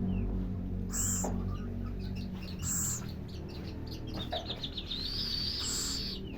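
Baby scops owl begging while being fed: short raspy calls repeating every second or two, with a thin high whistle-like call about five seconds in.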